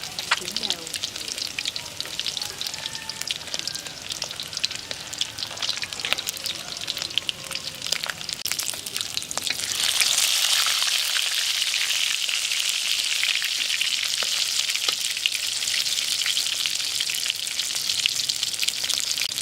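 Batter-coated loach deep-frying in hot oil: a crackling sizzle that swells into a louder, denser hiss about ten seconds in.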